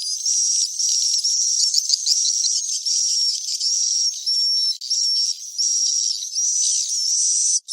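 Recorded twittering calls of edible-nest swiftlets, a swiftlet-house roosting lure sound: high, thin chirps repeating about twice a second in a dense chorus. The recording is filtered so that only the high chirps remain, with no low sound at all.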